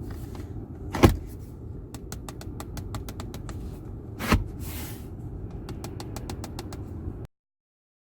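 Centre armrest of a 2019 Kia ProCeed GT rattling: two loud sharp knocks, about a second in and about four seconds in, and many small clicks, over a steady low rumble. The armrest lid knocks and rattles when an arm is rested on it. The sound cuts off suddenly a little before the end.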